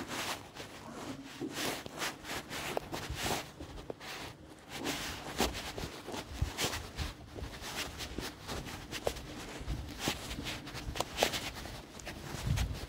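Irregular rubbing and scraping, broken by many scattered clicks and knocks.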